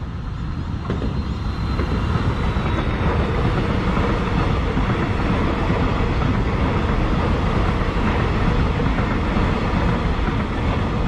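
Electric suburban train running past close by: a steady rumble of wheels on rails that builds over the first couple of seconds and then holds.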